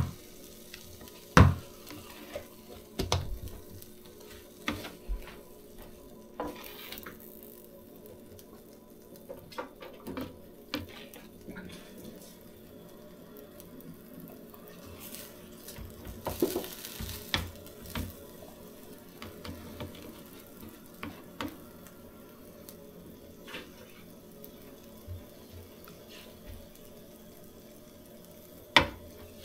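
Food sizzling on a Blackstone flat-top griddle, with scattered clicks and scrapes of a metal utensil on the steel cooktop and a louder stretch of hissing about halfway through.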